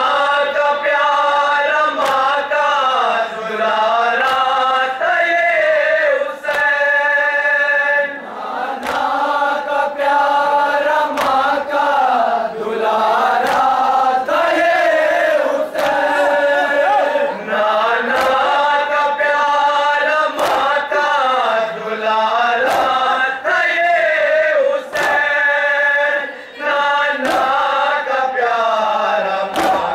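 A group of men reciting a nauha, an Urdu Muharram lament, chanted in unison behind a lead reciter. A sharp slap lands about once a second, the beat of matam (chest-beating) that keeps time with the lament.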